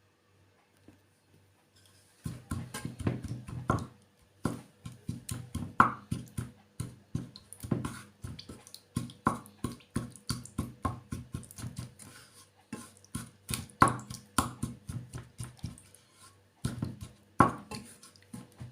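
A spoon stirring a thick honey, herb and oil syrup in its container, knocking against the sides in quick, irregular taps, with a few louder clinks. The stirring starts about two seconds in.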